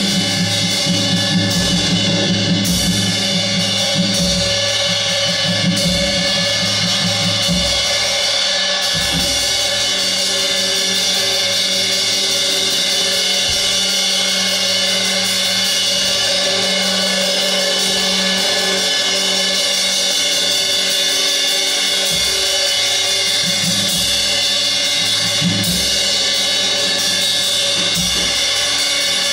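Improvised live percussion: a dense, steady wash of ringing cymbals and other metal, with scattered low drum strikes.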